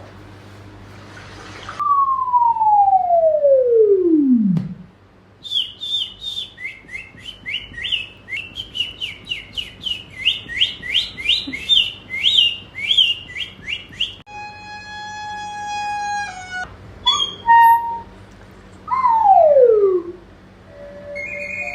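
A string of novelty sound effects played back. First a long whistle sliding down in pitch for about three seconds. Then several seconds of rapid, bird-like chirping, then a held whistle-like tone and more short whistles gliding downward.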